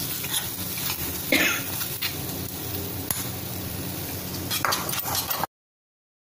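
Hot ghee tadka sizzling as it is poured and scraped with a metal spoon from a small tempering pan into cooked dal, with scrapes and clinks of the spoon against the pan. The sound cuts off suddenly near the end.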